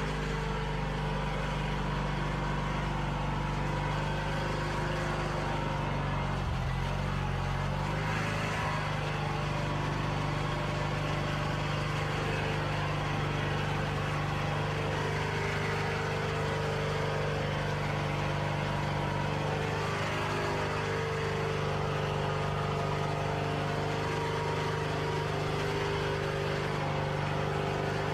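John Deere garden tractor's engine running steadily as the tractor is maneuvered, with a slight change in its tone about eight seconds in.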